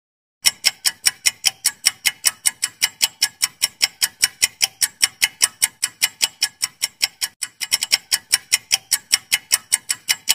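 Ticking clock sound effect of a quiz countdown timer: sharp, even ticks about five a second, starting about half a second in, with a brief uneven patch about three quarters through.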